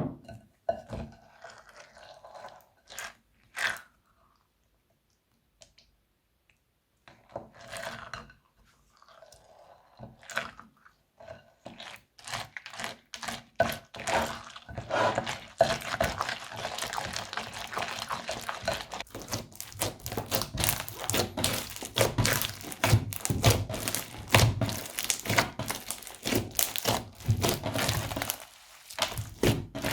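Crunchy slime being worked by hand, crackling and popping. A few scattered crackles and a short quiet spell come first, then dense, rapid crackling sets in and keeps going.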